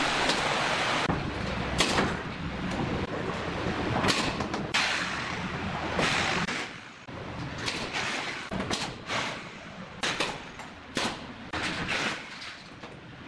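Corded electric drill running in short bursts, drilling into the concrete wall and driving screws into gypsum ceiling boards, with sharp knocks and clicks in between.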